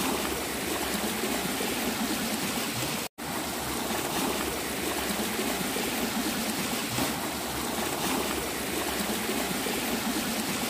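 Muddy floodwater rushing steadily, a continuous even rush of water, broken by a brief dropout about three seconds in.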